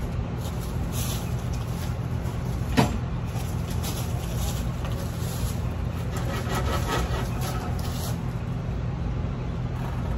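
A steady low hum runs underneath, with a single sharp knock about three seconds in and faint light scraping later on as the air compressor's 10 hp three-phase electric motor is handled and turned over by hand.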